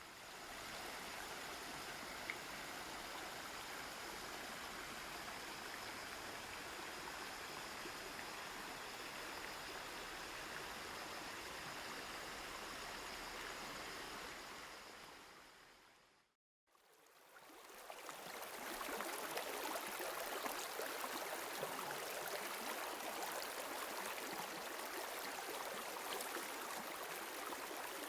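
Stream water flowing steadily over rocks. The sound fades out about halfway through and fades back in louder and brighter.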